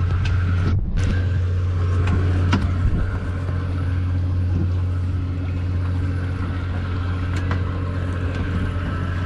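A boat engine running at a steady low hum, with a few faint clicks over it.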